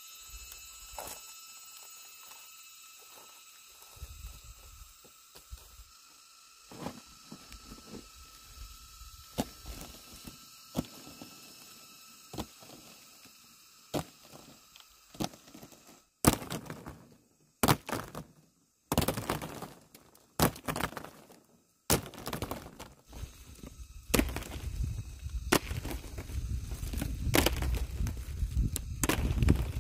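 Dried corn cobs knocking and clattering together as they are tossed and spread by hand on a woven mat. Sparse, faint clicks at first, then a dense run of louder knocks from about halfway, with a low rumble under them near the end.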